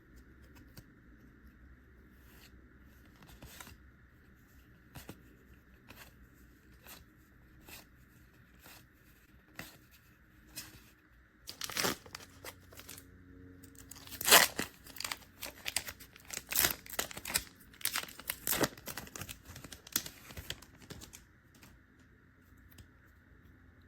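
Foil wrapper of a Pokémon booster pack being torn open and crinkled by hand. Faint rustles and clicks give way about halfway through to a run of loud, sharp tearing and crackling that lasts around ten seconds.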